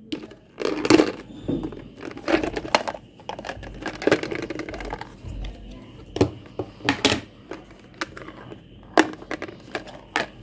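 Objects being handled: irregular sharp taps and clicks, a dozen or so, with crinkling between them.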